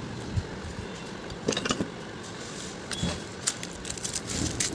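Light metallic clicks and clinks from handling a new 6201 ball bearing and ceiling-fan motor parts, a few sharp ones about a second and a half in and more near the end, over a steady low hum.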